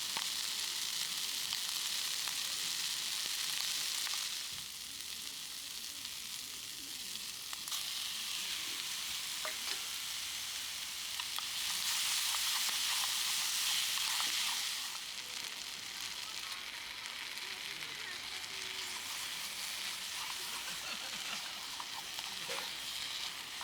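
Food sizzling and frying in a pan, a steady hiss that grows louder at the start and again about halfway through, with a few light clicks of a utensil against the pan.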